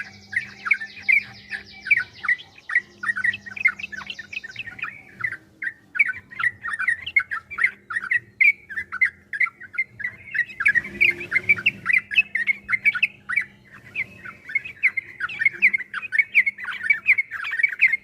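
Yellow-vented bulbuls (trucukan) in long, rapid, continuous chattering song (the 'ropel' style), many short notes a second without a break. A buzzy higher trill runs over it for the first few seconds, and there is a brief rustle about eleven seconds in.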